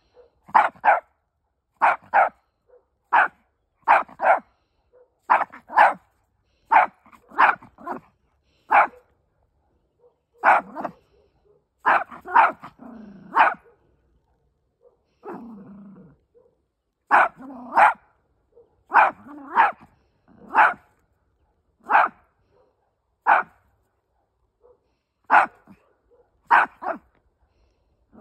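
Small Chihuahua barking sharply and over and over, often in quick pairs, with a short break about halfway through: warning off other dogs it hears barking nearby.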